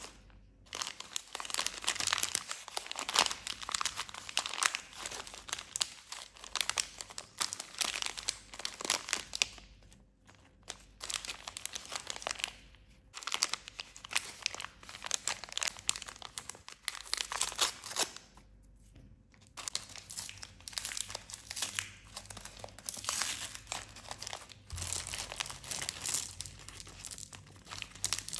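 Plastic snack wrapper crinkling in the hands, with a bag of M&M's Crunchy Cookie candies being torn open. The crackling comes in bouts with a few short pauses.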